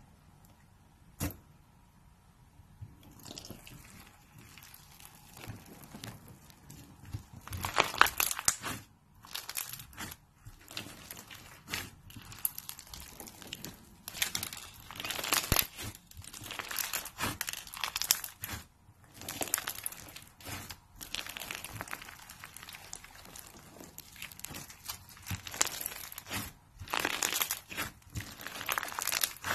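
Crunchy slime being squeezed and worked, giving irregular bursts of crackling and crunching. It is faint with a single click at first, then louder and denser from about eight seconds in.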